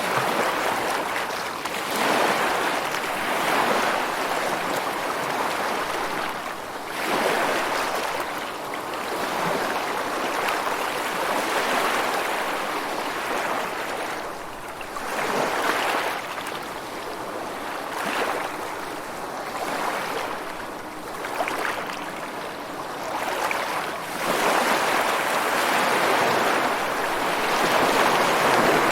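Rushing water, a steady hiss that swells and ebbs every few seconds, with stronger surges about 2, 7, 15 and 24 seconds in.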